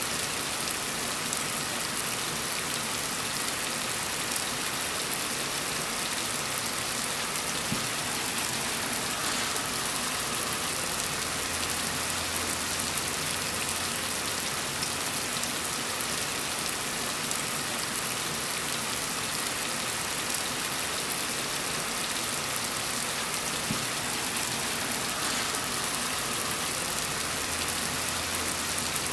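Heavy rain falling steadily: an even, dense hiss of rain on surfaces.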